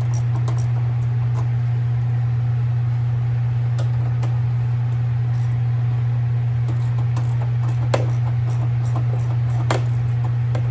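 A steady low hum throughout, with scattered clicks and clinks of hand tools working on the 10 mm bolts that hold the tractor's fuel tank, more frequent in the second half.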